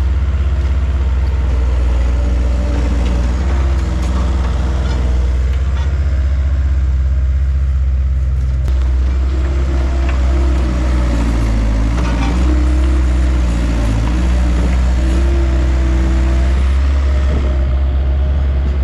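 Bobcat S175 skid-steer loader's diesel engine running close by, its pitch rising and falling as the loader digs and carries dirt.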